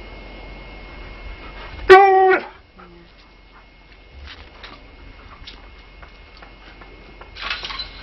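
An Alaskan Malamute gives one short, loud, wavering whine about two seconds in, followed by faint clicks and a brief rustle near the end.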